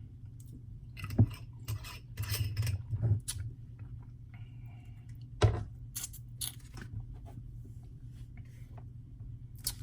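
Scattered clicks and scrapes of a fork against a dish while eating, the sharpest two about a second in and halfway through, over a low steady hum.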